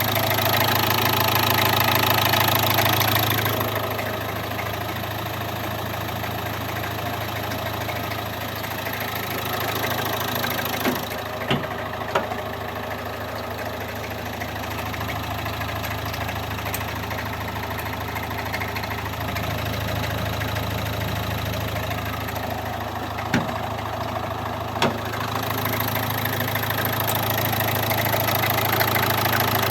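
Renault K9K 1.5 dCi four-cylinder diesel engine idling steadily, with an extraneous knocking and grinding, cricket-like noise that points to a fault the owner is trying to pin down. A few sharp clicks stand out, and the engine sound is louder in the first few seconds and again near the end.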